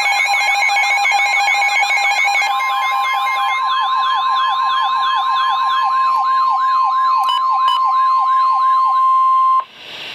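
Several electronic siren wails sweep quickly up and down, layered over steady alert tones, one of them a tone just above 1 kHz typical of the weather radio warning alarm. Everything cuts off abruptly near the end, leaving radio hiss.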